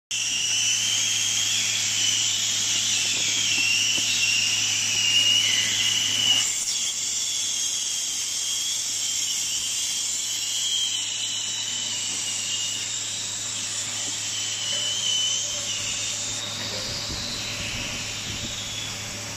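Hot air welding machine blowing hot air while it welds a PVC tarpaulin seam: a steady hiss with a wavering high whine over a low hum.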